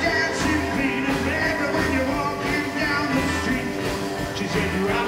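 Live rockabilly band playing a rock and roll number with a steady beat: upright bass, drums, acoustic and electric guitars and electric piano together.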